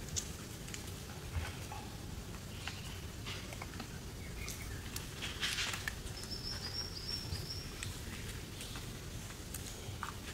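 Quiet outdoor background with a steady low hum and scattered light clicks and rustles, a brief rustle about five and a half seconds in, and a faint high chirp just after it.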